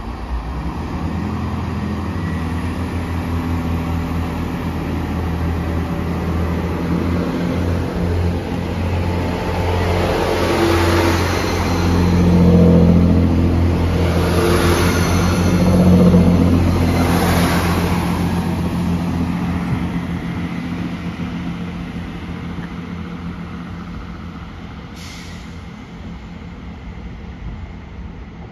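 Class 165 diesel multiple unit pulling away: its underfloor diesel engines run with a steady drone. It grows loudest as the carriages pass close by, about twelve to seventeen seconds in, with the rush of wheels on rail, then fades as the train draws away.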